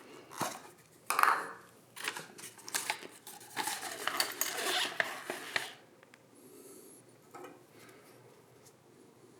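A run of clicks, scrapes and rattles from hard objects being handled, loudest about a second in and busiest in the first half, then a few faint knocks and rustles.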